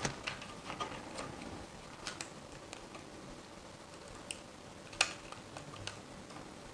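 Faint handling noise: light rustling and a few sharp clicks as a flat ribbon cable is fed by hand into a connector on a plastic-framed circuit board. The loudest click comes about five seconds in.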